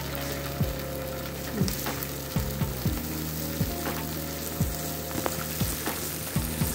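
Thick masala gravy sizzling in a metal wok while a wooden spatula stirs and scrapes it, with a short scrape about once a second. A steady low hum runs underneath.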